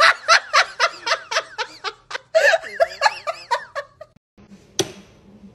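A person laughing in a quick run of high-pitched giggles, about four a second, stopping about four seconds in, followed by a single sharp click near the end.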